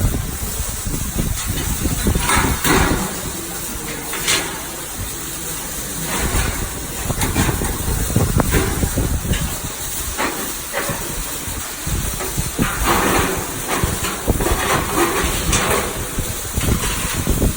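Electric arc welding: the arc runs with a steady crackling sizzle and hiss, like frying, with louder crackly stretches now and then.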